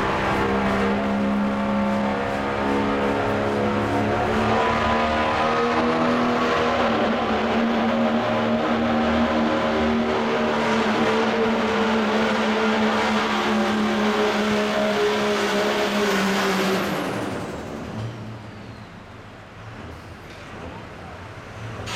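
Dodge Ram pickup's Cummins diesel held at full power pulling a weighted sled, a loud steady drone with a high whine that climbs in about five seconds in and holds. About seventeen seconds in the power comes off, the whine falls away, and the engine drops back to a much quieter idle as the pull ends.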